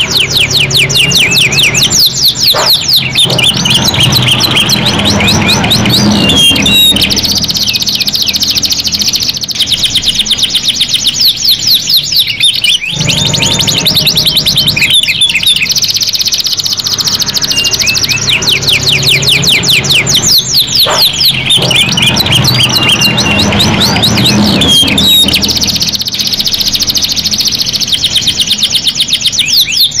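Two domestic canaries singing long, fast rolling trills and chirped phrases, with short breaks every several seconds between song bouts.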